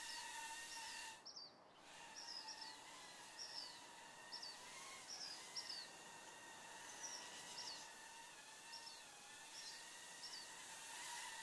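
Faint outdoor birdsong ambience: repeated short, high bird chirps, roughly one or two a second, over a faint steady hum. Everything cuts out for about half a second just over a second in, then resumes.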